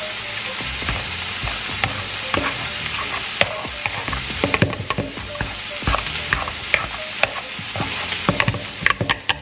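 Potatoes being mashed and stirred with a metal potato masher and a spatula in a plastic mixing bowl: soft squishing with irregular knocks and scrapes of the utensils against the bowl, over a steady hiss.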